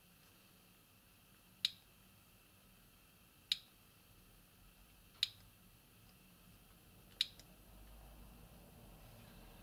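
Four short, sharp clicks about two seconds apart, like the keys of a Siemens C25 mobile phone being pressed one at a time. No ringtone plays.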